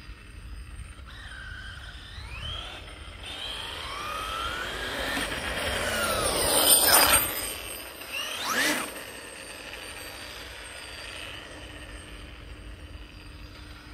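MCD W5 RC car driven by a brushless TP Power TP5860 motor, running flat out toward the camera with a high motor whine rising in pitch. The whine is loudest and drops in pitch as the car passes about seven seconds in. A second short rise-and-fall of the whine follows about a second and a half later, then it fades.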